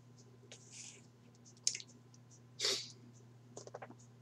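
Low steady hum in a small room, with a few faint clicks and a short, sharp breath through the nose about two and a half seconds in.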